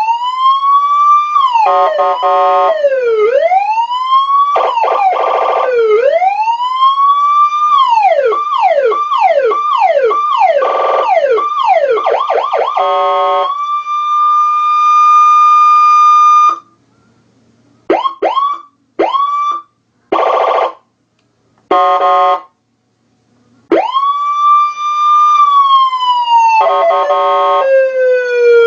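Electronic siren module switching through its tones: slow rising and falling wails, faster yelp sweeps, a long steady high tone, and short chirps separated by pauses. Bursts of a buzzing interrupt horn break in between the sweeps.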